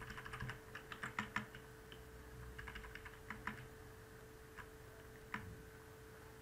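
Computer keyboard typing: quick runs of key presses in the first half, then a few single clicks near the end, over a faint steady hum.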